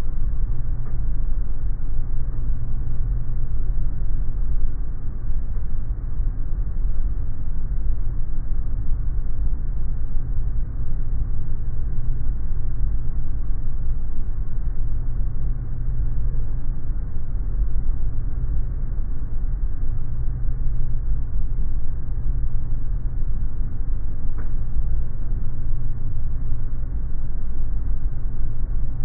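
Steady low rumble of an airliner on final approach with its main landing gear extended: airflow and engine noise.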